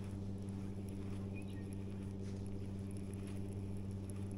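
A boat motor running with a steady low hum, with a few faint light clicks over it.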